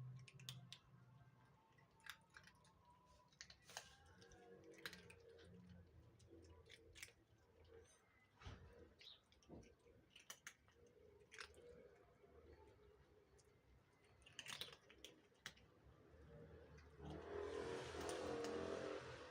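Cats chewing food: faint, irregular crunches and clicks. Near the end comes a louder, rougher sound lasting about two seconds.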